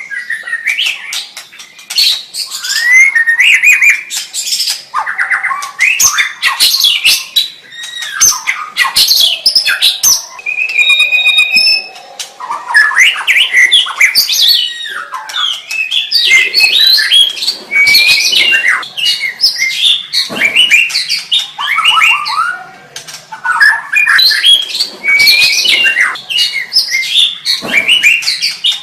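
White-rumped shama (murai batu) singing a long, varied song of rapid whistled notes that sweep up and down, mixed with sharp clicking notes, in phrases broken by short pauses every few seconds.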